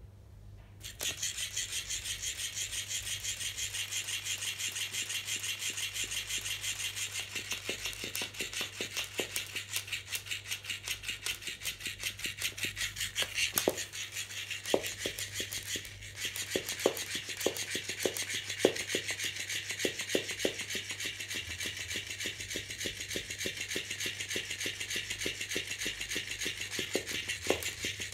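Electric flopping fish cat toy starting up about a second in, its motor whirring and rattling in a fast, even rhythm as the tail flaps. Sharper irregular knocks come and go through the middle.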